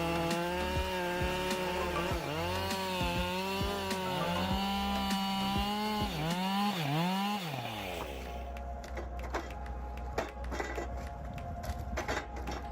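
Chainsaw running at high speed, its pitch dipping and recovering several times as it takes load, then falling away about seven and a half seconds in. After that comes a lower, steady hum with rapid clicks.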